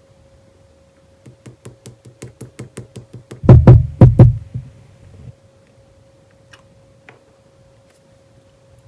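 Clear jelly slime being pressed and worked by hand, giving a run of sharp clicking pops about four or five a second that build to three loud pops, then die away.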